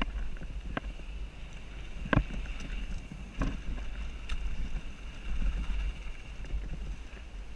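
Wind and riding rumble on a helmet-mounted GoPro during a mountain-bike descent, with four sharp knocks and rattles from the bike over rough trail, the loudest about two seconds in.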